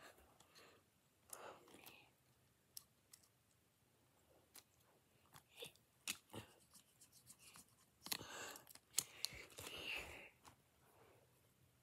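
Faint handling of small plastic Lego pieces close to the microphone: scattered light clicks and rustling, busiest about eight to ten seconds in.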